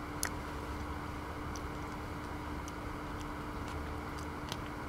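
A few light clicks and taps of a utensil against camp cookware, the sharpest just after the start, over a steady low hiss with a faint hum.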